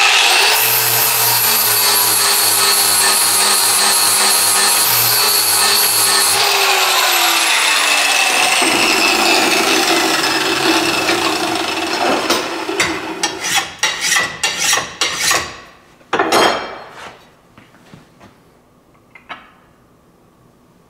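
Angle grinder with a flap disc running and grinding the cutting edge of a steel mower blade held in a vise, taking a little more metal off the heavy side to bring the blade into balance. About six seconds in it is switched off and winds down with a falling whine. Sharp metallic clanks and knocks follow as the blade is handled, then it goes quiet.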